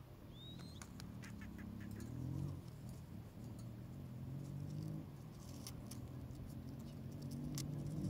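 Rose-ringed parakeets clambering on a wire cage: light clicks and taps of claws and beak on the metal bars in scattered runs, with one short rising chirp about half a second in. Under them runs a low steady hum.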